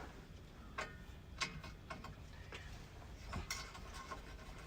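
Faint, scattered light clicks and taps, roughly one every half second at irregular spacing, from hand tools and parts being handled during work under the truck.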